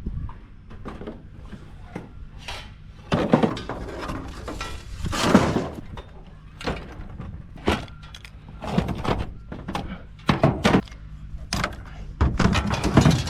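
Work noises on a concrete job: a string of thunks, clatters and scrapes of tools and materials being handled, the loudest about three, five and thirteen seconds in, over a low steady hum.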